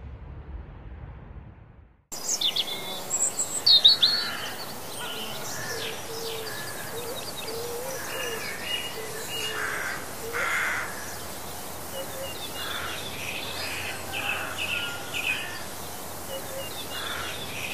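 A low rumble of ambient noise fades out, then about two seconds in a chorus of songbirds starts suddenly, many chirps, trills and whistles over a steady outdoor hiss.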